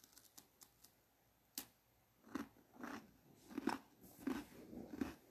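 A person chewing crunchy food close to the microphone: a sharp crunch about a second and a half in, then a run of crunching chews.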